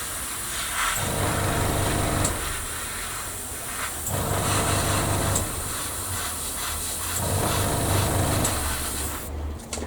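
Airbrush spraying paint with a steady hiss of air, over a small compressor's motor hum that swells and eases every few seconds. The spraying stops shortly before the end.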